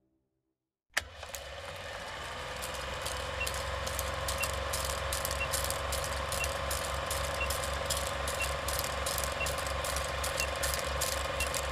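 Film countdown leader sound effect: an old film projector's steady whirring clatter that starts abruptly about a second in, with a short high beep once a second.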